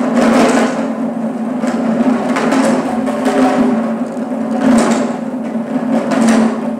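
Percussive dance music: heavy drum strikes every second or so over a steady low tone, echoing in the hall.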